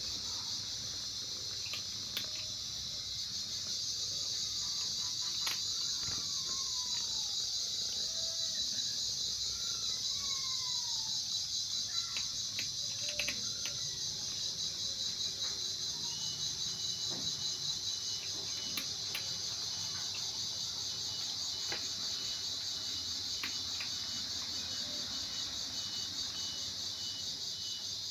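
A steady, high-pitched chorus of insects chirping. A few faint falling calls come in its first half, and there are scattered light clicks.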